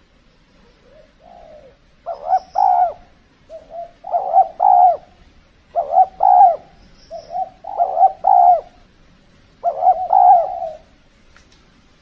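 Spotted dove (tekukur) cooing its song, a phrase of several low coo notes repeated about every two seconds.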